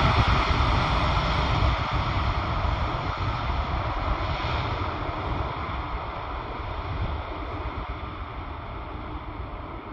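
Airbus A380's four GP7200 jet engines rushing as the airliner rolls down the runway after touchdown, the noise fading steadily as it moves away. Wind buffets the microphone throughout with a low rumble.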